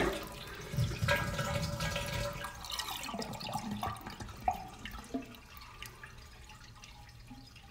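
Toilet tank draining through its open flush valve with the water supply shut off: a rush of water that fades over about three seconds into gurgles and scattered drips as the tank empties and does not refill.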